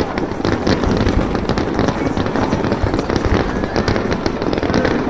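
A barrage of fireworks going off in rapid succession, a dense, unbroken run of bangs and crackles.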